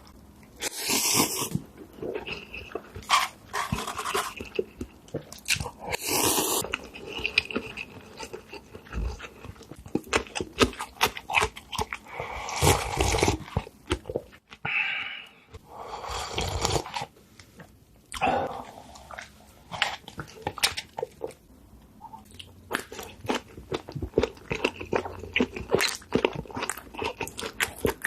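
Close-miked eating sounds: crunchy bites and chewing, with many small clicks and several louder noisy passages lasting about a second each.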